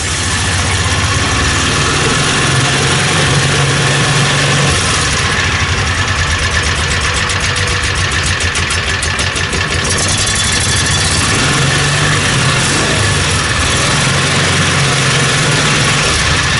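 Kawasaki Mule 3010's 617 cc V-twin gasoline engine running steadily, with its carburetor freshly cleaned.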